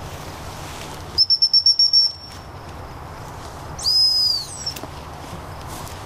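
Dog-training whistle blown in a rapid run of about seven short pips, then one longer blast that drops in pitch at its end: a handler's whistle signals to a working flushing spaniel.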